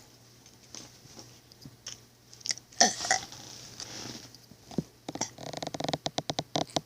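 A person burping on purpose: a few short throaty burps and gulps, the strongest about three seconds in, then a longer croaking burp that rattles in rapid pulses for about a second and a half near the end.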